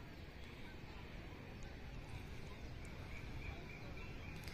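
Quiet outdoor ambience: a low, steady rumble of wind on the microphone, with no distinct event.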